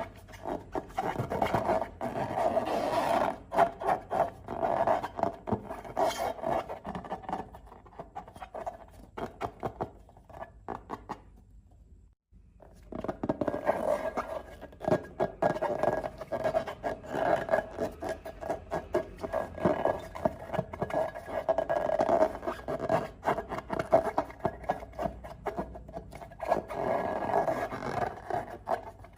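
Slime being worked and squished, a dense run of sticky crackles and scraping with a steady hum underneath. It breaks off briefly about twelve seconds in, then starts again.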